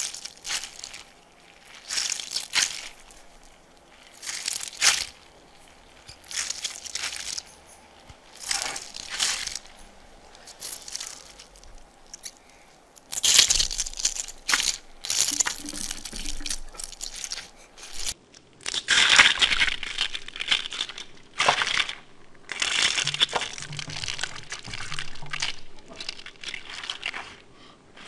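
Mesh stress ball filled with water beads being squeezed and pressed into slime: repeated wet, crinkly crackles every second or two, coming thicker and longer in the second half.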